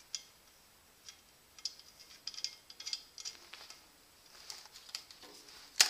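Irregular small clicks and rattles of a bandsaw work-lamp fixture and its mounting bolt being handled as the bolt is slid back over the wires, with one sharper click near the end.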